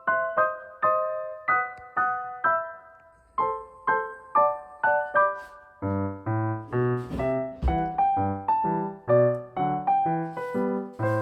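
Background piano music: a melody of single struck notes, each fading away, joined by a lower accompaniment about six seconds in.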